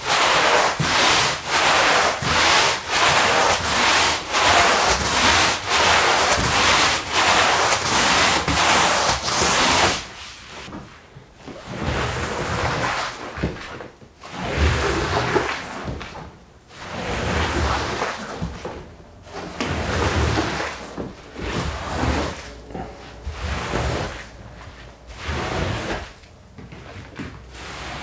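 Stiff push broom scrubbing a wet, soapy rug in quick back-and-forth strokes, about two a second. About ten seconds in the scrubbing stops and a squeegee is drawn across the rug in slower strokes, each a couple of seconds long, pushing foam and water out of the pile.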